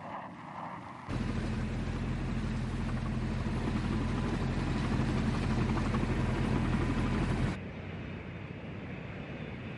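Engine running steadily with a low hum, cutting in suddenly about a second in and dropping to a quieter hiss about two seconds before the end.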